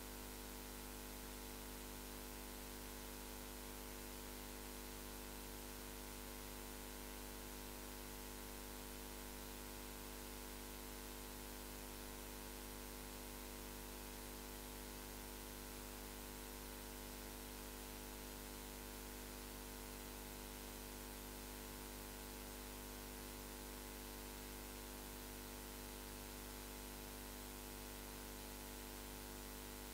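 Steady hiss with a constant electrical hum and buzz. No speech or other sounds come through.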